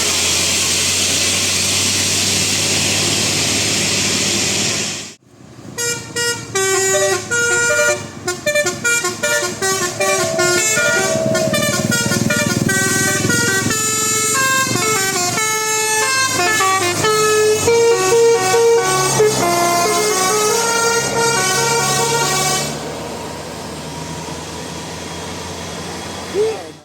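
A loud steady rushing noise that cuts off suddenly about five seconds in, then a bus's telolet multi-tone air horn playing a fast tune of short stepped notes for about seventeen seconds, before dropping to a quieter steady rumble near the end.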